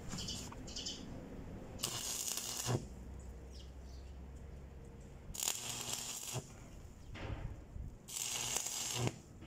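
Stick (arc) welder on a steel forklift exhaust pipe: three short crackling bursts of arc, each about a second long, as the electrode is struck and short tack welds are laid.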